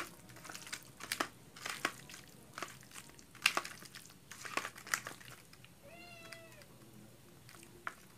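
Hands squishing and slapping raw chicken pieces in a spice marinade in a stainless steel bowl, in irregular wet strokes. About six seconds in, a cat meows once.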